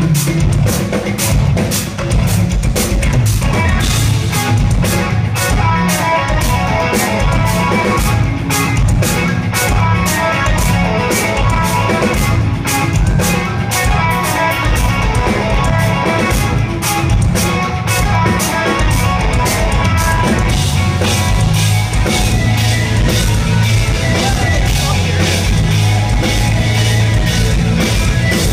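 Live instrumental progressive metal band playing at full volume: eight-string electric guitars over fast, dense drumming and heavy bass. Loud and slightly blurred, as a phone picks it up from within the crowd.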